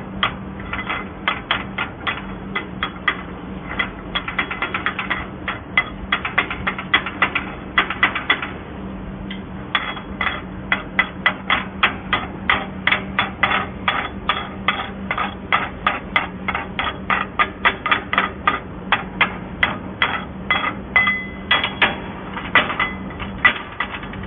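Rapid, irregular sharp taps, a few a second with brief pauses, over a steady low hum.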